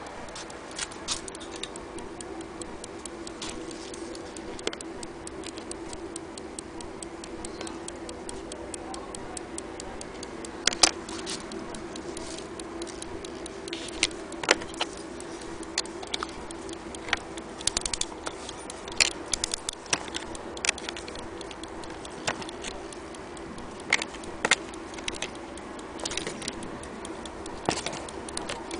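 Elliott mantle clock ticking, with scattered louder clicks over a steady low hum.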